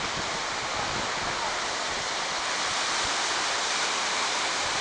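Ocean surf washing and breaking over the rocks below, a steady even hiss of water.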